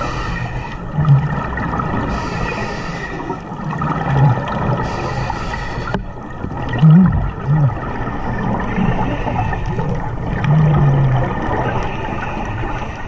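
Scuba diver breathing through a regulator underwater: hissing inhalations every few seconds alternating with bursts of exhaled bubbles, several breaths in all.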